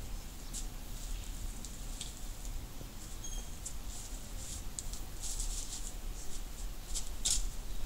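Light rustling and small clicks of a woven straw bag and the items being packed into it, over a low steady background rumble.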